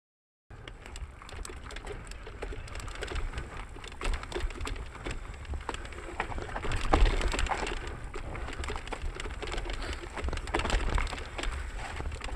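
Mountain bike riding down a forest dirt trail, starting about half a second in: knobby tyres crackling over dirt, roots and twigs, the bike rattling over bumps, and a low rumble of wind and jolts on the action camera.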